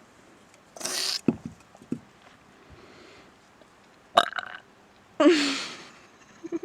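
A woman lets out a long, loud beer burp about five seconds in, lasting about a second, with shorter bursts of noise before it.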